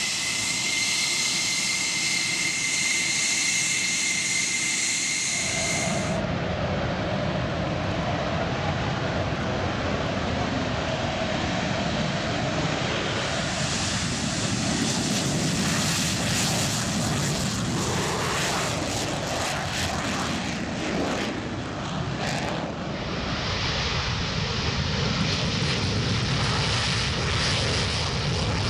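McDonnell Douglas F-4 Phantom's twin J79 turbojets: first a steady high-pitched whine, then from about six seconds in a loud full-range roar. The roar crackles through the afterburner takeoff and runs on as the jet climbs away.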